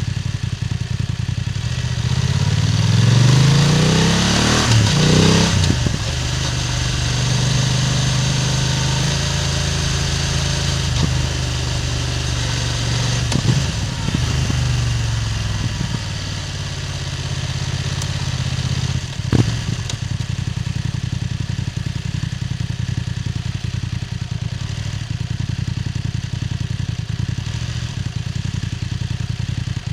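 BMW F900R parallel-twin engine's exhaust note while riding, heard close to the exhaust. The revs climb steeply a few seconds in, then settle into a steady pull with small rises and falls. There is one brief knock about two-thirds of the way through.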